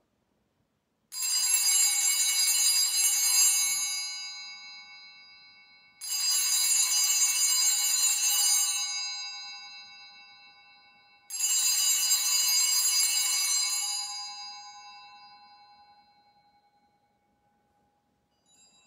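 Altar bells rung three times, about five seconds apart, for the elevation of the chalice at the consecration. Each ring is about three seconds of shaking, then it rings out slowly.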